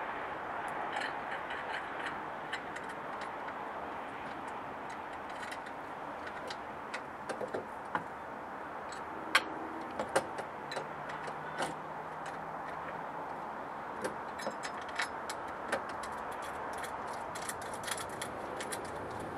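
Scattered small metallic clicks and taps of bolts and bracket parts handled by hand while fitting a tubular running board to its mounting brackets, over a steady background hiss. The sharpest clicks come a little over nine and ten seconds in.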